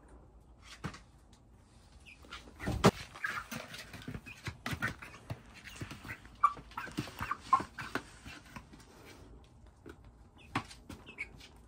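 Young Buff Orpington chickens, about two months old, giving short high peeps and trills up close, among a scatter of sharp taps and knocks. The loudest is a single knock about three seconds in, and it grows quieter after about nine seconds.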